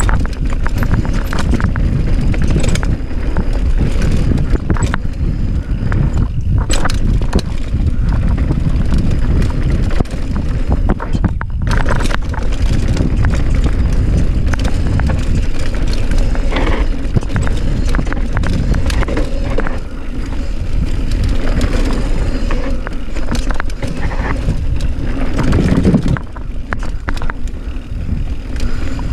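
Mountain bike riding down a rough trail: tyres rolling over dirt and rock with the bike rattling over bumps, under a constant rumble of wind on the microphone.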